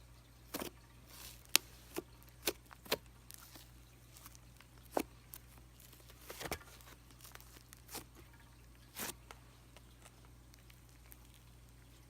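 Hands squishing and pressing a thick cream-cheese-textured slime, giving a scattered run of sharp clicks and pops, about a dozen, that die away after about nine seconds.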